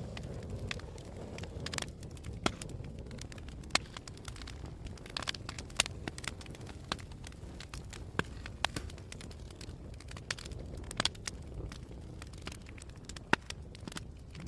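Wood fire burning in a fireplace, crackling with irregular sharp pops, several a second at times, over a low steady rumble.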